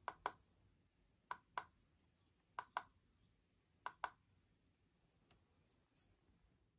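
Faint plastic button clicks on a Midland emergency weather radio: four double clicks, each a press and release, about a second and a quarter apart.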